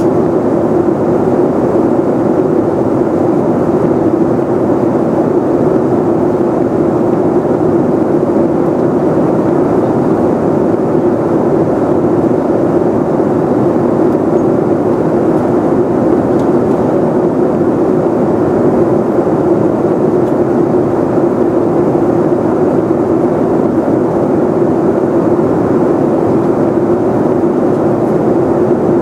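Steady cabin noise of a Boeing 747-400 at cruise, heard inside the cabin: an even rush of airflow and engine noise with a steady hum running through it.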